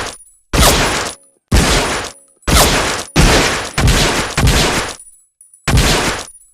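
M1911A1 .45 ACP pistol firing single shots, about seven in a row at uneven spacing, each shot ringing out for about half a second before the next.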